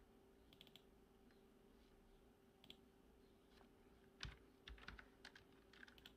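Faint scattered clicks of a computer mouse and keyboard, a few in quick clusters, the loudest about four seconds in, over a faint steady hum.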